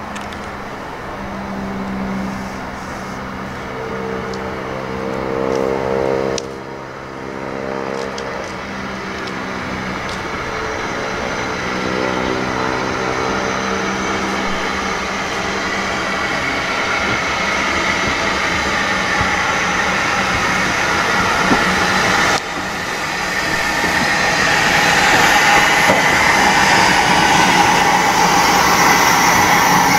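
Caledonian Railway 812 Class 0-6-0 steam locomotive No. 828 pulling away and running past. A steady low droning tone sounds through the first half, then the engine's exhaust and wheel noise grow steadily louder as it draws close.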